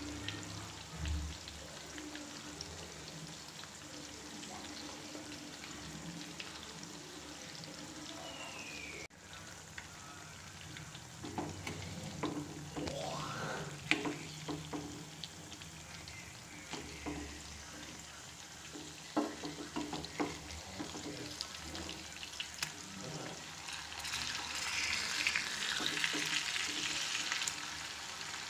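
White pomfret pieces shallow-frying in oil in a flat pan, a steady sizzle. From a little before halfway, a spatula taps and scrapes against the pan among the pieces, and the sizzle grows louder near the end.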